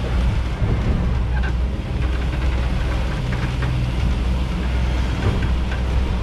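A sailboat's auxiliary engine running steadily under way, a constant low hum.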